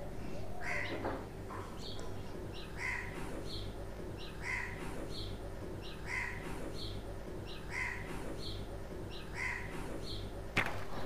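A bird calling over and over, a short two-part call repeated about every second and a half, over a steady low hum. Near the end comes a rustle of a paper packet being handled.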